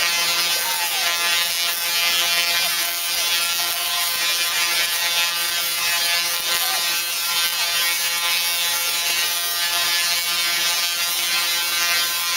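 Two Tesla coils firing sparks at each other: a loud, steady, buzzing crackle of electrical discharge.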